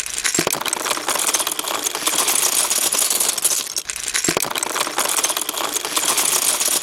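Dense, continuous clatter of many small hard objects rattling and tumbling together, with a couple of louder knocks, about half a second in and about four seconds in.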